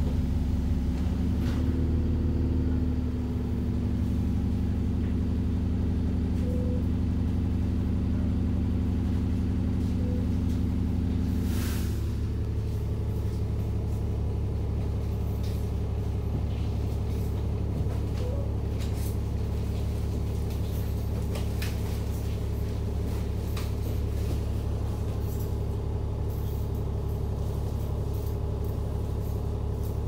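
Alexander Dennis Enviro400 Trident double-decker bus's diesel engine idling while stationary, heard from inside the passenger saloon. About twelve seconds in there is a short hiss and the higher hum drops away, leaving a lower steady idle.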